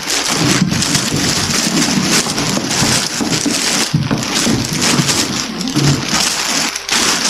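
Dense crackling and crinkling of a camera box's packaging being handled and opened, a busy run of small crackles without a break.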